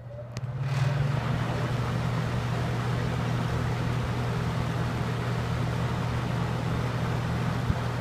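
Early-1970s Lakewood S-122 12-inch box fan with its small GE motor running on high, which runs kind of fast on this fan. It spins up over about the first second, then runs steadily: a motor hum under the rush of air from the blades.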